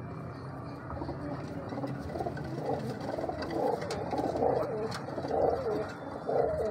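Domestic pigeons cooing in their loft, repeated warbling coos that start about two seconds in and go on through the rest.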